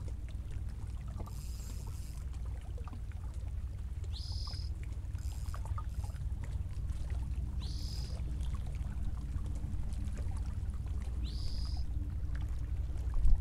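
Wind buffeting the microphone in a steady low rumble, with a bird repeating a short rising chirp about every three and a half seconds.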